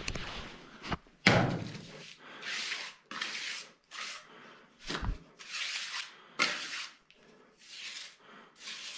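Trowel scraping and smoothing freshly mixed wet cement mortar in a mixing trough, in short repeated strokes a little over one a second, the loudest a little over a second in. The mortar is being smoothed flat to test its consistency.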